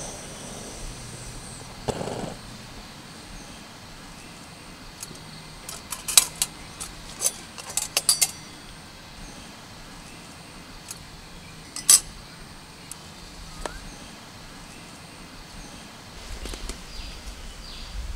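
Light metal clinks of a steel camping pot and its lid being handled, steam rising off the hot water: a cluster of clinks about a third of the way in and one sharper clink about two-thirds in, over quiet outdoor ambience.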